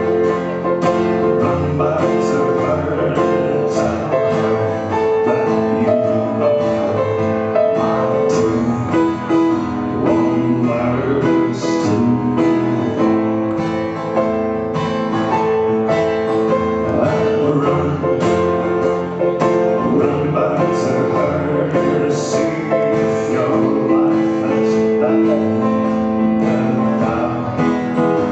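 A live band playing an instrumental passage of a song, led by held keyboard chords, with light percussion hits at a steady level.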